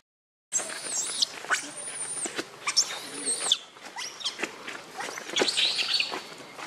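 Baby pig-tailed macaque giving repeated high-pitched squealing cries that rise and fall in pitch: a hungry infant begging to nurse. The cries begin abruptly after a brief silent gap.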